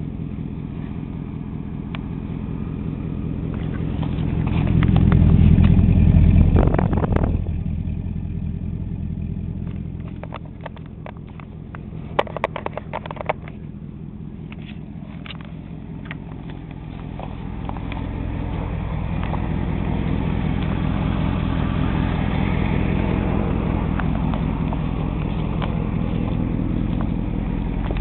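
1977 Mercury Cougar's 400 cubic inch V8 running steadily at idle, newly started after sitting for five years. It grows louder for a few seconds about five seconds in and again over the last ten seconds, with a few sharp clicks near the middle.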